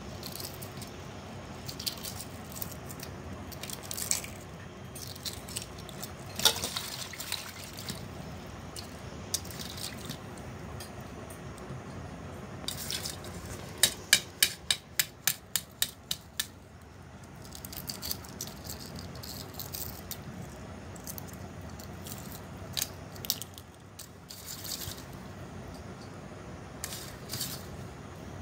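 Hard-boiled eggs being peeled by hand in a bowl of water: shell crackling and water dripping and splashing, with scattered clicks. About halfway through comes a quick run of about ten sharp taps, some four a second.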